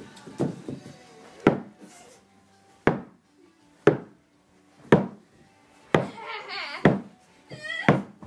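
A series of sharp smacking thuds about once a second, from blows in a mock fight. A kid's yelling voice comes in near the end.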